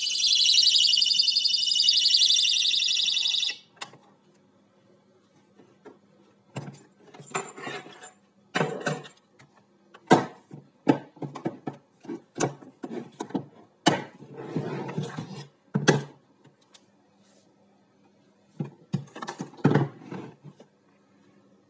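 Shrill electronic alarm from a prop bomb's speaker, cutting off suddenly about three and a half seconds in. Then scattered clicks and knocks as the hard plastic carry case is handled and its lid shut.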